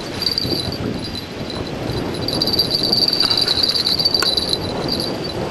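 Insects chirring steadily in a high, slightly pulsing band over a rough rushing noise, with a few sharp clicks.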